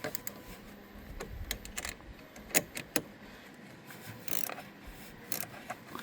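Scattered metallic clicks and taps of a wrench working on a car battery's negative terminal bolt as it is loosened, the two sharpest clicks a little over halfway through.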